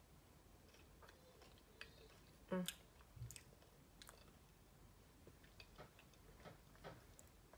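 Quiet chewing of a snack bar close to the microphone: scattered small wet clicks and crunches, with one louder mouth sound about two and a half seconds in.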